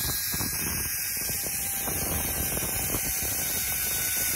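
Zipline trolley running along the steel cable with a steady whir, mixed with wind buffeting the microphone during the ride.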